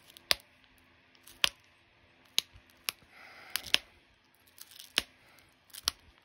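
Opalite being pressure flaked with a copper-tipped flaker against a leather hand pad: about eight sharp clicks at irregular intervals as small flakes pop off the edge.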